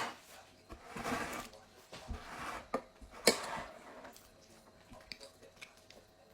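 Close-up eating sounds from chewing undercooked, still-hard ramen noodles: a few short crunchy bursts, a sharp click a little past three seconds, then small scattered ticks and clinks.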